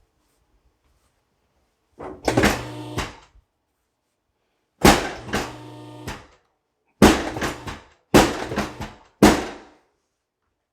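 Five heavy thunks with a short ringing after each, from the chiropractic adjusting table under the chiropractor's thrusts. The first two come about three seconds apart, then three follow about a second apart.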